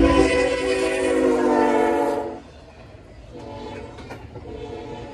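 Freight locomotive air horn blowing loudly for about two seconds and cutting off sharply, then sounding again more faintly about a second later, over the rumble of double-stack container cars rolling past.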